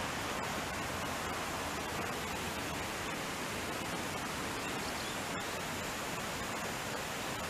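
Steady, even rushing hiss with no distinct events.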